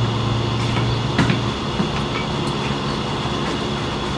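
Steady mechanical hum, with a strong low tone that drops out about a second and a half in, and a few faint knocks.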